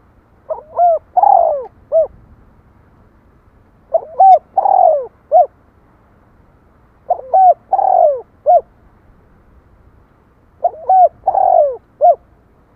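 Spotted dove cooing: four call phrases about three and a half seconds apart, each a quick run of a few coos about a second and a half long, ending on a short final note.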